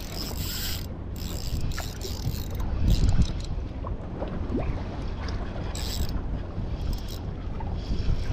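Spinning or baitcasting fishing reel being cranked, its gears whirring, over steady wind and water noise on a small boat.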